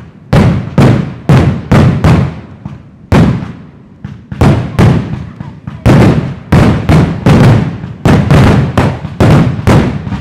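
Aerial fireworks bursting in quick succession: sharp bangs about two a second, each dying away, with a short lull a few seconds in before the bangs come faster again.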